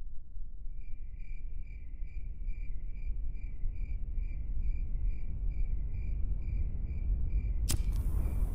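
A cricket chirping steadily at a single high pitch, about two to three chirps a second, over a low rumble. Near the end a louder hiss cuts in abruptly while the chirping carries on.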